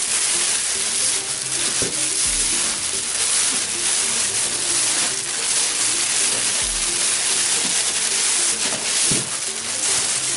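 Thin plastic carrier bag crinkling and rustling steadily as it is pulled over a cardboard box and bunched by hand.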